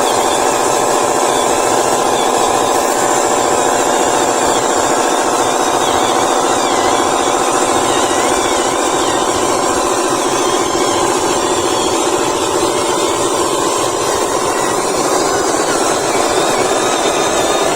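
Small electric motors and gearboxes of radio-controlled toy construction models (Huina excavators and dump truck) whirring steadily as they work, without pause.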